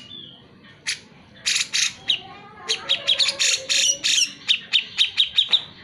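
Cucak jenggot (brown-cheeked bulbul) singing: a few sharp, separate notes, then a fast chattering run of short calls, about five a second, for the last three seconds.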